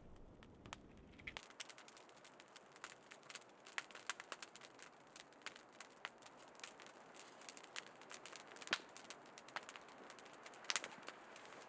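Wood fire crackling, with many sharp irregular pops and snaps.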